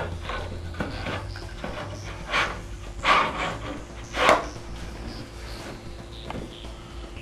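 Wooden bottom panel scraping in the grooves of a wooden tray frame as it is pushed home, in three short strokes about two and a half, three and four seconds in, with a few lighter knocks of wood being handled.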